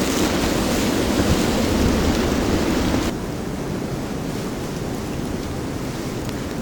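Blizzard wind blowing and rushing across the microphone, a steady noisy rush. About halfway through it turns suddenly duller and a little quieter.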